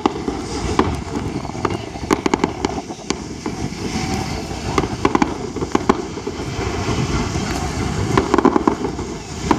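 Fireworks bursting in the air: an irregular run of sharp bangs and pops, bunched in quick clusters about two, five and eight seconds in.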